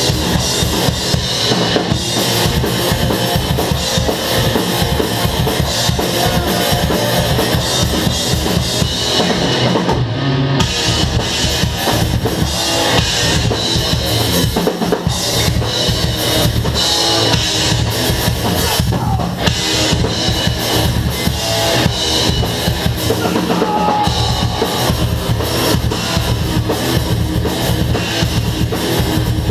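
Live metal band playing loud, with dense, driving drums and rapid bass-drum hits under the guitars.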